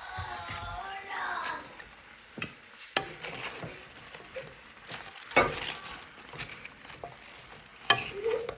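Purple cabbage sizzling in a frying pan as it is stirred, with a few sharp clinks and scrapes of the utensil against the pan. A brief high-pitched voice-like sound comes in the first second or so.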